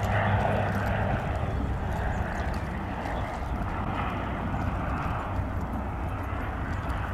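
Aircraft engines running, a steady drone with a constant low hum underneath.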